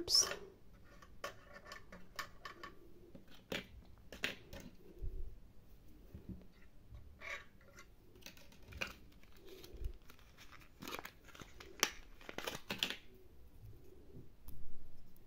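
Hands handling a small plastic doll, its fabric clothing and little plastic accessories: scattered light clicks, taps and rustles at irregular intervals, with a louder rustle-and-knock right at the start.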